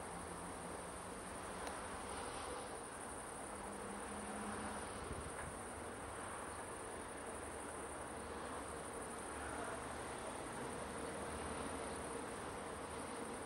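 Crickets chirring steadily and high-pitched, over a faint low hum from a Siemens Smartron electric locomotive rolling slowly by with a container train.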